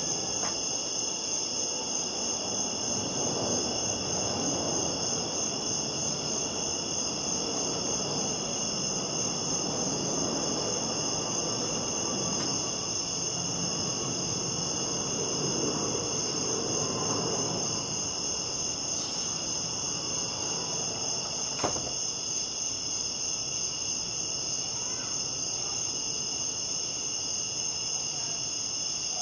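Crickets chirping steadily in a high, even trill, over a soft low rushing noise that swells and eases through the first two-thirds. A single sharp click sounds about two-thirds of the way through.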